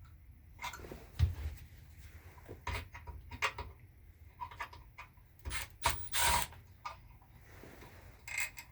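Hand work with a wire and tools on a small motorcycle: scattered clicks, taps and short rubbing scrapes as a ground wire with a crimped eyelet is fitted to the ignition coil.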